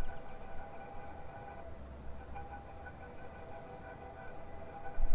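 A sustained ambient drone of several held tones, with a faint high chirp repeating about four times a second.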